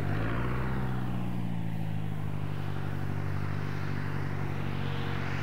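Low, steady engine rumble with a slight rise in pitch as it starts, like a motor idling.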